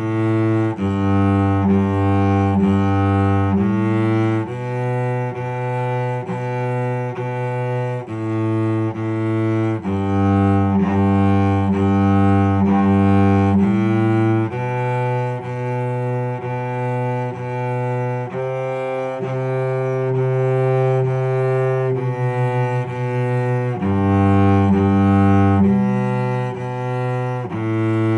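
A cello bowed through a simple beginner tune on the notes G, A, B and C, low on the instrument, each note played even and steady.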